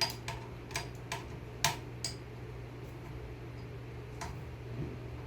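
Sharp clicks from the knife-sharpening jig's clamp as it is tightened onto the blade, about six in the first two seconds, with a couple of fainter ones near the end, over a steady low hum.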